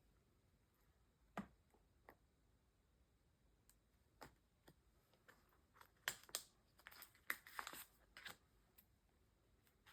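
Faint rustles and light clicks of trading cards and their packaging being handled: a single click early on, then a busier patch of handling noise in the second half.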